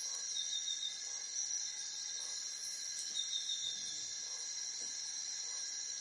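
Steady, high-pitched drone of forest insects, several unbroken high tones layered together. Two short chirping phrases break in, about half a second in and again about three seconds in.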